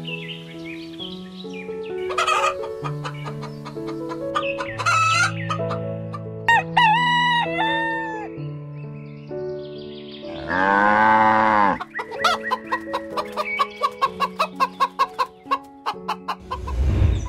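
A rooster crowing once, a long call about ten and a half seconds in, with hens clucking before and after it in quick runs of short calls, over background music with steady held notes. A short loud low swell comes near the end.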